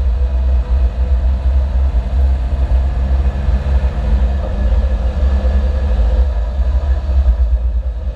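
A vehicle running, heard as a steady, loud low rumble of engine and road noise, with faint steady tones above it.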